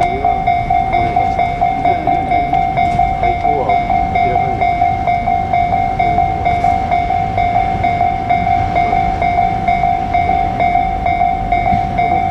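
Japanese level-crossing alarm ringing: a steady electronic bell tone repeating a few times a second, over the low rumble of a train on the line.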